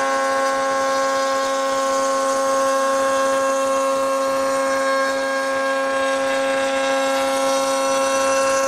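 Router running at a steady, constant-pitch whine while its bit cuts into the end of a pine board held against the fence; the cut goes easily in the softwood.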